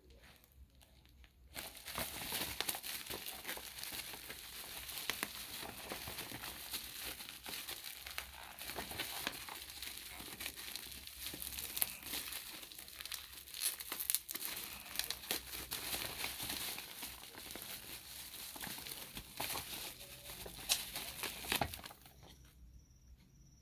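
Plastic packaging crinkling and tearing as a parcel is unwrapped by hand. It starts about a second and a half in and stops near the end.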